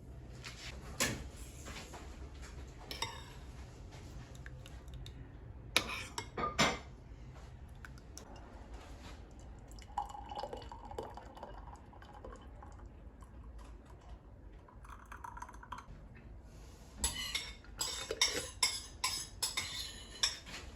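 Kitchen utensils and dishes clinking and knocking: a few separate knocks, then a quick run of clinks near the end.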